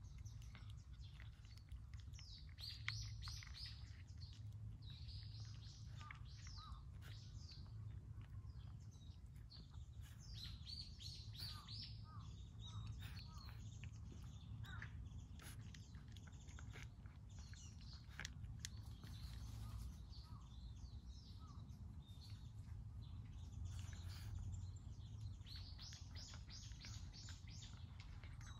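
Birds chirping, in several clusters of quick high notes, over a steady low background rumble.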